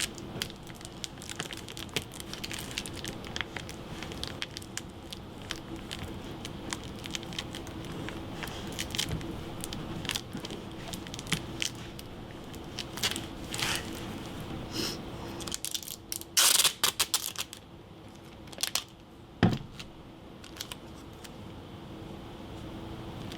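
Paper crinkling and tape being pulled and torn, with scattered small clicks and knocks of handling, over a faint steady hum. A louder flurry of crinkling comes about two-thirds of the way in, followed by a single sharp knock.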